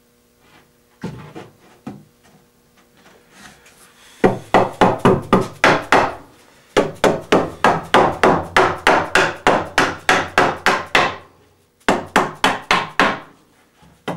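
Mallet tapping a cherry breadboard end onto the long tenon of a tabletop, seating the joint. A few scattered knocks come first, then quick, even blows about five a second in three runs.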